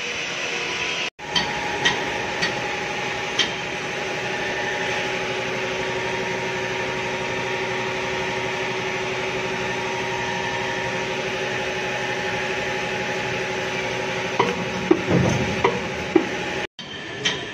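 Dog-chew injection moulding machine running with a steady hum of several fixed tones, with a few sharp clicks early on. About fifteen seconds in there is a short burst of clattering knocks.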